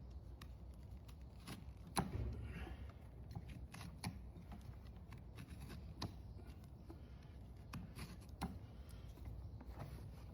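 Hoof-trimming work on a horse's hoof: irregular sharp clicks and scrapes of the trimming tools against the horn, with a louder knock about two seconds in and a faint low rumble underneath.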